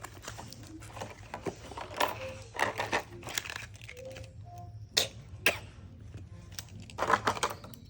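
Plastic toy packaging being handled and opened: irregular crinkles and sharp clicks, with two louder snaps about five seconds in and a cluster of clicks near the end.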